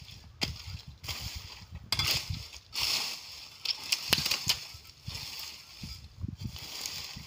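Hands-on garden work in soil and weeds: a run of rustling, scraping strokes, about one a second.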